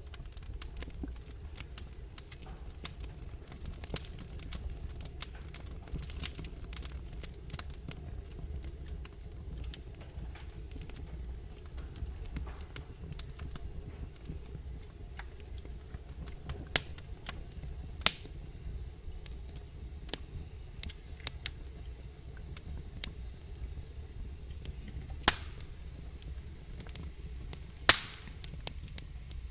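Wood logs burning in a fireplace, crackling with a steady scatter of small ticks and a few sharp, louder pops in the second half, over a low steady rumble.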